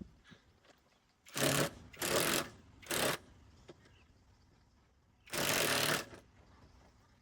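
A power tool run in four short bursts, the last one the longest.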